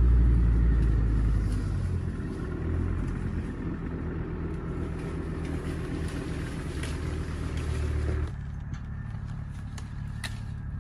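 An engine runs steadily with a low rumble, loudest at first and easing over the first couple of seconds. About eight seconds in the sound cuts to a quieter, fainter hum with scattered light clicks.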